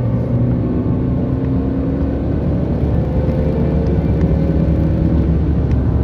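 Car driving on an open road, heard inside the cabin: a steady low rumble of engine and tyres.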